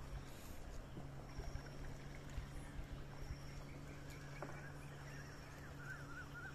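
Quiet waterside ambience: a steady low hum, with faint high chirps recurring every second or so and a faint wavering call near the end.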